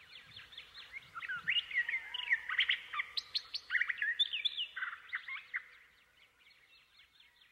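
Several small birds chirping and twittering together in quick, overlapping calls, busiest in the middle and fading out near the end.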